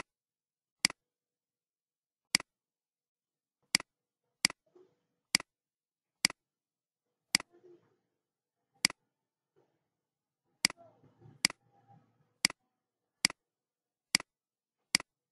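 Computer mouse button clicking, about fifteen sharp single clicks at uneven gaps of roughly a second, a few followed at once by a softer second click.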